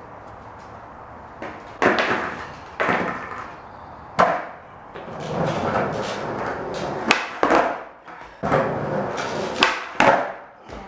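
Skateboard being popped and landed on concrete during tre flip attempts: several sharp wooden cracks and slaps of the deck and wheels hitting the ground, with the wheels rolling in between.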